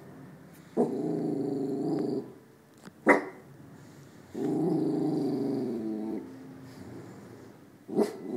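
West Highland white terrier puppy growling at the window: two long growls of about a second and a half each, with a short sharp bark between them and another bark near the end.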